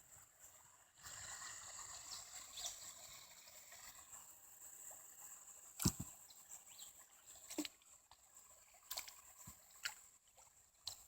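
Faint water sounds of a kayak being paddled: a paddle dipping and dripping and water lapping at the hull, with a few sharp knocks, the loudest about six seconds in.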